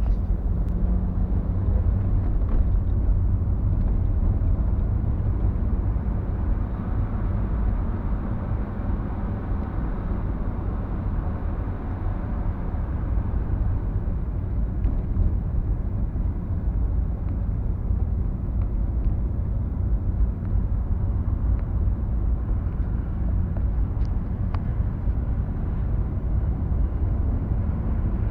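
A car driving along, its engine and road noise making a steady low rumble.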